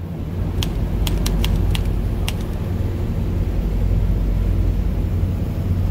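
Low steady rumble of a passenger ferry's engines under way, with a few sharp clicks in the first couple of seconds.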